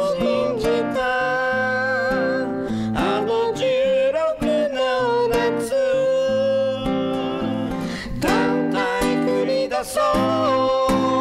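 A man singing a slow song into a close microphone, holding long notes with vibrato, over strummed acoustic guitar chords.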